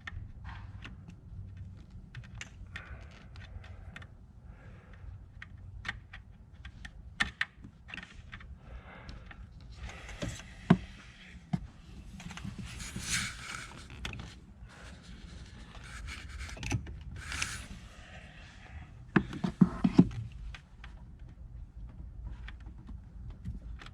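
Pliers working at a stuck rubber hose on an engine fitting: scattered light clicks and knocks of the metal tool, with a few short scraping rustles as the hose is gripped and twisted.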